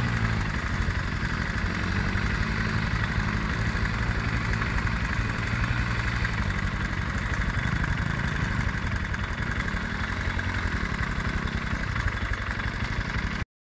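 Pit bike engine running under load on a muddy uphill climb, its note rising and falling with the throttle. The sound cuts off suddenly near the end.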